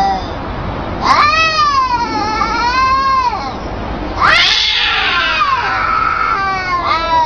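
Domestic cats meowing back and forth in long, drawn-out calls whose pitch wavers up and down. Three calls of about two seconds each: the first about a second in, the second starting high and falling, the third beginning near the end.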